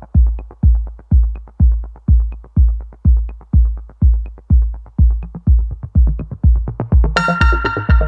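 Electronic intro music with a heavy kick drum beating about twice a second; a brighter synth layer comes in about seven seconds in.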